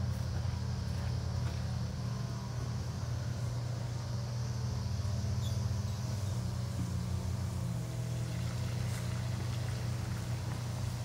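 Steady low mechanical hum of a running engine or motor, even and unbroken, with a few faint ticks over it.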